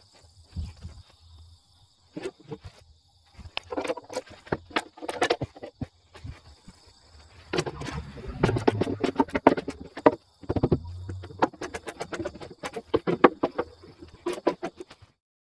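Clusters of sharp clicks and knocks from a hand tool working the top mounting bolts of a truck's front fender as it is tightened in alignment, with crickets chirping steadily behind.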